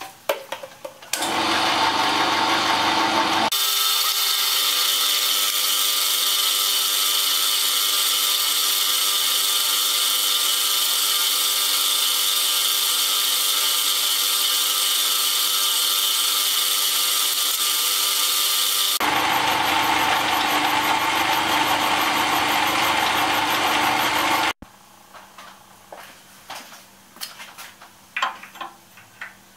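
Milling machine running, its end mill cutting a bronze bearing pad: a loud, steady machining sound with several steady tones. It cuts off suddenly about 24 seconds in, leaving light clicks and taps.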